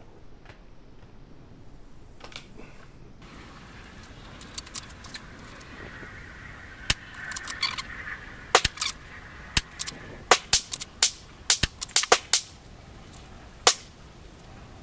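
A string of sharp rifle shots, about a dozen, mostly in the second half. Several come in quick succession a fraction of a second apart, with a few fainter cracks a few seconds earlier.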